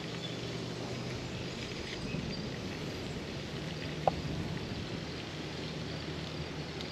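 Steady outdoor background noise with a faint, steady low hum underneath, and a single short high note about four seconds in.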